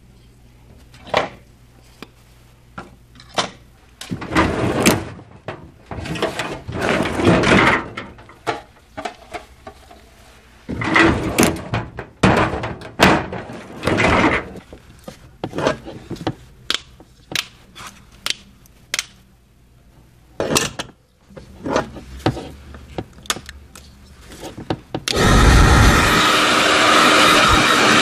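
Gloved hands handling barber tools and clipper cords at a workstation: scattered clicks, knocks and rustling. About 25 seconds in, a Twin Turbo 2600 hair dryer is switched on and blows with a loud, steady rush.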